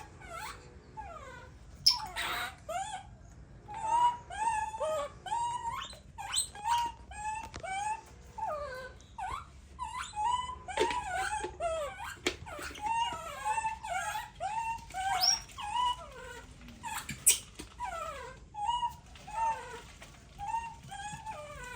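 Baby monkey crying over and over in short, high whimpering calls that rise and fall, one after another, with a couple of sharp clicks in between.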